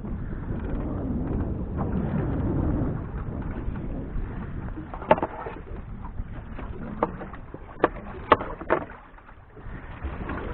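Wind noise and sea sounds around a small drifting fishing boat, with about five sharp knocks in the second half.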